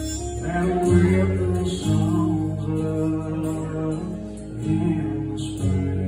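A man singing live to his own acoustic guitar accompaniment, the guitar notes ringing steadily under the voice.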